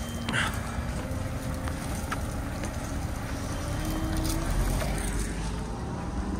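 Sherp ATV's diesel engine running under load as it pushes through deep snow and brush, its pitch rising a little about four seconds in. A few sharp cracks of breaking branches and small trees sound over it.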